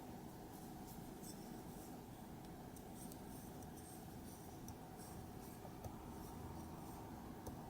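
Faint rustling and small scattered ticks of a crochet hook working cotton-blend yarn while chaining stitches, over a low steady room hum.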